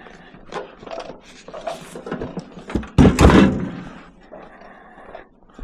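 A microwave landing on scrap metal in a truck bed: small handling knocks, then one loud metallic thud about three seconds in that rattles and rings for about a second.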